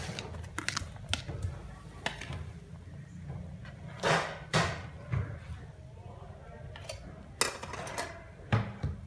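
Metal ladle scraping food off a plate into a pot and stirring soup in a steel pot: scattered clinks and knocks of metal on metal, with a few louder scraping swishes about four seconds in and again near the end.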